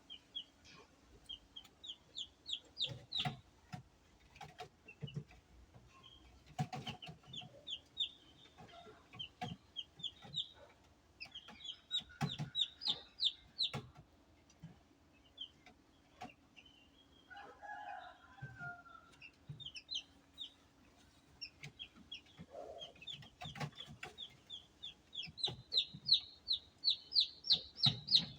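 Newly hatched chicks peeping inside a homemade egg incubator: repeated rapid runs of short high peeps, loudest near the end, over a steady low hum and scattered soft knocks.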